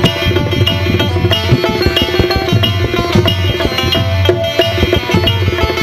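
Harmonium playing a melody over a fast hand-drum rhythm, an instrumental passage of Sufi devotional music.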